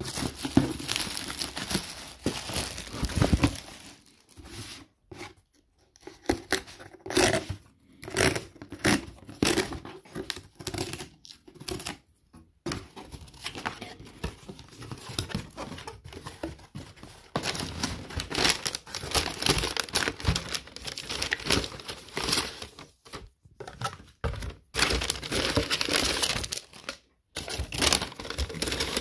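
Plastic mailer wrapping and cardboard packaging being handled and pulled apart by hand: irregular crinkling and rustling with tearing, in bursts broken by a few short pauses.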